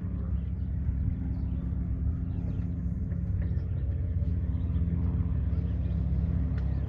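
An engine running steadily: a low drone with a constant pitch that slowly grows louder.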